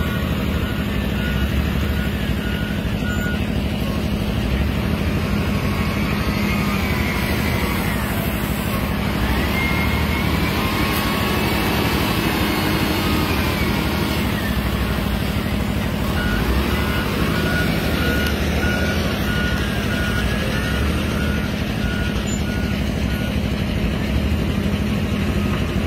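Wheel loader's diesel engine running steadily as the machine works a sand pile, rising and falling in pitch as it revs in the middle. Its reversing alarm beeps at an even pace near the start and again from about two-thirds of the way in.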